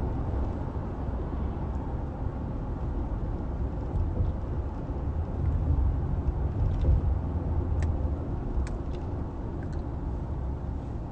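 Steady low rumble with a few faint clicks in the second half.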